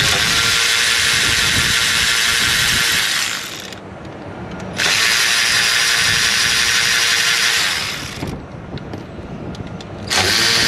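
Cordless electric ratchet running in three bursts, the first two about three seconds each and the third starting near the end, with a steady motor whine as it backs out the EGR valve bolts.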